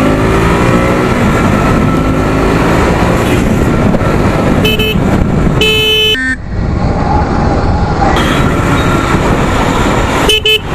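Motorcycle engine running under way, its pitch rising as it accelerates, with heavy road noise. A vehicle horn sounds briefly about five seconds in, again for about half a second a second later, and once more near the end.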